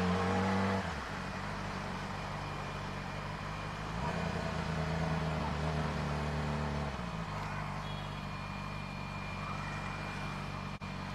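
Yamaha R6's inline-four engine running at low revs while riding in traffic. The engine note eases off about a second in, swells again from about four to seven seconds, then settles lower.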